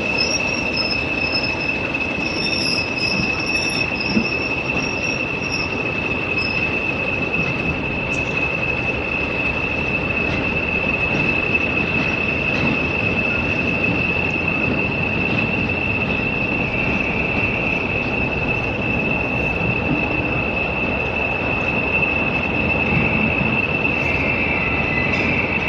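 Diesel-hauled train on the move, with Class 50 and Class 40 diesel locomotives: a steady high-pitched whistle holds all through over the even rumble of the train.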